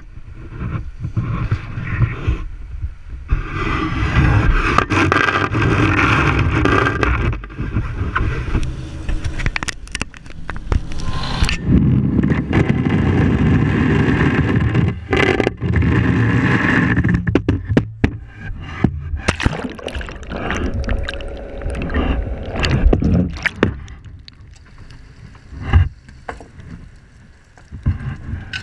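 A lobster boat running steadily, with repeated knocks and scrapes of gear handled at the rail and water sounds. It grows quieter over the last few seconds.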